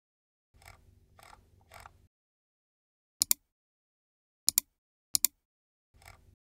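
Three short calls about half a second apart, then sharp computer mouse clicks in quick pairs, three double clicks, with one more short call near the end.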